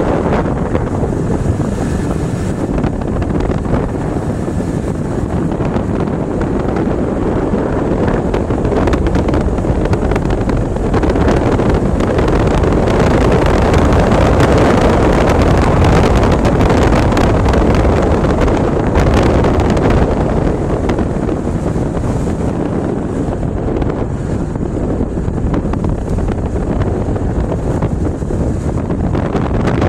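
Steady rush of wind buffeting the microphone, over the running noise of a vehicle driving across sand dunes.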